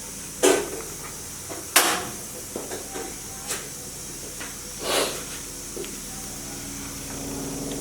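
A few sharp knocks and clacks as a king crab's shell and kitchen things are handled for cleaning, the one about two seconds in the loudest, over a steady hiss.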